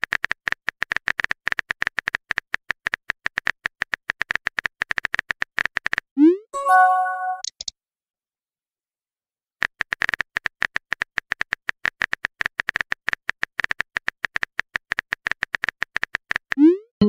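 Simulated phone-keyboard typing: a rapid, even run of soft key clicks. About six seconds in, a short rising pop and a brief chime sound as a message is sent. After a pause of about two seconds, a second run of typing clicks follows, ending in the same rising pop and chime.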